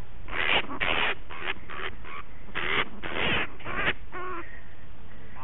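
Grey-headed flying-fox screeching: a rapid run of about eight harsh screeches over some three and a half seconds, then one short pitched call. An injured, agitated bat protesting at being held.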